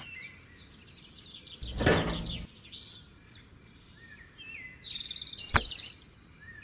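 Small birds chirping and twittering throughout, with a short burst of rustling handling noise about two seconds in and one sharp click near the end, as small plastic parts are moved about and set down on concrete.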